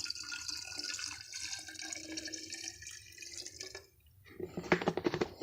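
Liquid glugging and splashing out of a bottle for about four seconds, then a quick run of sharp clicks and rattles near the end.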